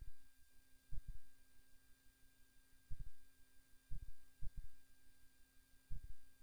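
A steady electrical hum with a faint high whine, broken by short dull low thumps at uneven spacing, roughly once a second.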